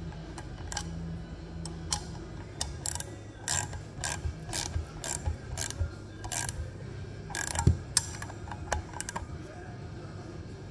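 Socket ratchet clicking in short irregular runs as it turns a double-nutted cylinder mounting stud into a Honda TRX250R crankcase half, with one heavier knock near the end.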